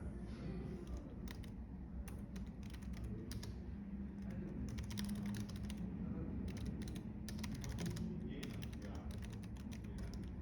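Typing on a computer keyboard in quick runs of key clicks, with short pauses between runs, over a low, steady background murmur of cafe ambience.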